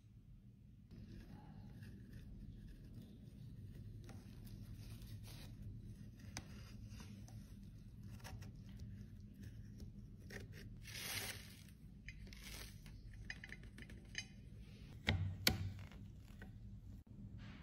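Faint scraping of a small metal spatula against pressed eyeshadow and the metal pans of a makeup palette, with a louder scrape about eleven seconds in and a few sharp clicks and taps near the end as the spatula works under a pan.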